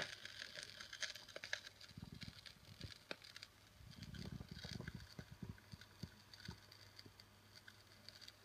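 Faint, irregular clicks and crackles with soft low rubbing rumbles in between, opening with one sharp click.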